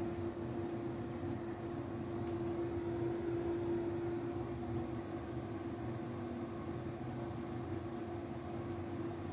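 Steady machine hum with a constant mid-pitched tone, typical of fans and drives idling in a small room, with a few faint clicks.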